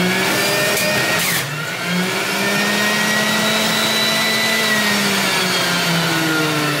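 Breville centrifugal juicer's motor running on high, with a loud steady hum and the grinding of a cucumber being pushed down the feed chute and shredded. The motor's pitch dips briefly about a second and a half in and sags slowly near the end as the produce loads it.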